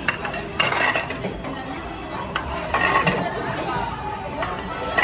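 Ceramic sushi plates clinking as they are taken off a stack one at a time and slid into a Kura Sushi table's plate-return slot, several sharp clinks with a short ring, a second or two apart. Restaurant chatter goes on underneath.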